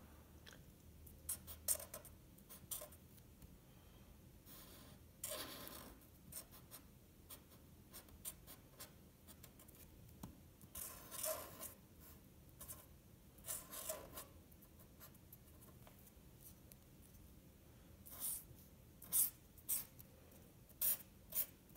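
Felt-tip marker drawing on paper: faint, irregular short scratchy strokes, with a run of quicker, sharper strokes near the end.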